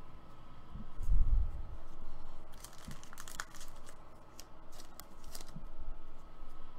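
Trading cards being handled and slid into a clear plastic card sleeve: crinkling plastic and sharp clicks of card edges, with a low thump about a second in.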